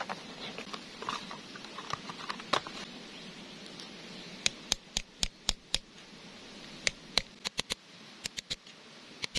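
Hammer tapping a steel screwdriver against the oil seal in a tiller's wheel-axle seal housing to work the seal out: two runs of sharp metallic taps, about four a second, starting about halfway through, with a few more near the end. Before that, soft rustling and small clicks of handling.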